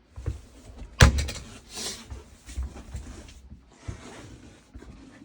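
A sharp knock about a second in, like a door or cupboard shutting, followed by scattered shuffling and handling noises inside the caravan.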